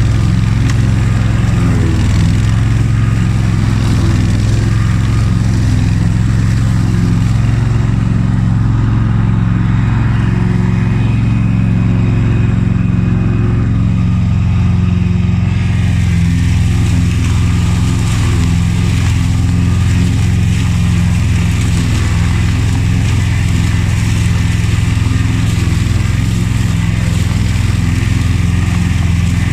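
Honda HF2622 ride-on lawn tractor running steadily while mowing tall grass, its engine hum constant, the sound turning brighter and harsher about halfway through.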